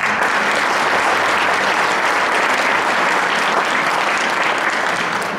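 Crowd applauding, starting suddenly and tapering off near the end.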